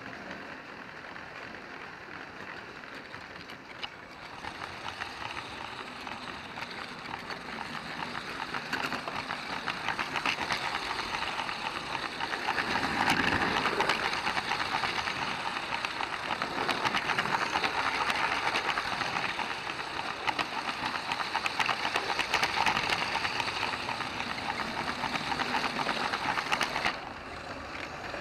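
A LEGO train running on plastic track, heard from a camera riding on the train: a steady motor whir with a fast rattle and click of wheels and couplings. It grows louder partway through and drops off suddenly near the end.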